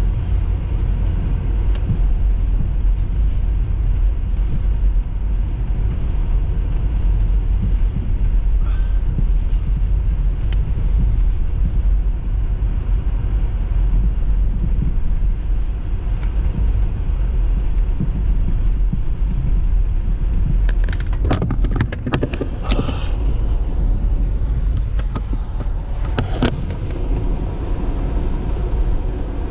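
A car driving with a steady low rumble, and a few sharp clicks and knocks about three quarters of the way through.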